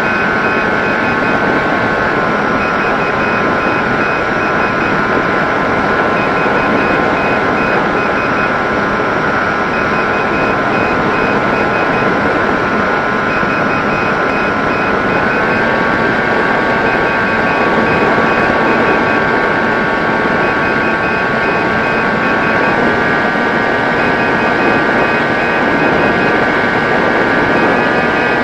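Electric motor and propeller of a small RC plane whining steadily in flight over a rushing noise. The pitch drops a little about two seconds in and rises again about halfway through and once more later, as the throttle changes.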